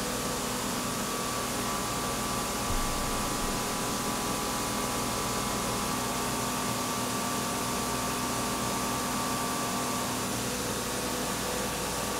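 Doosan DNM 5700L machining centre cutting titanium with a 1/2-inch carbide end mill on a finishing pass, under flood coolant: a steady hiss of spraying coolant with a faint steady whine from the spindle and cut.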